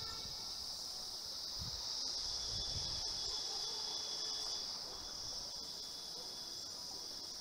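Steady high-pitched shrilling of an insect chorus, crickets or similar, with a second, lower note joining for a few seconds in the middle.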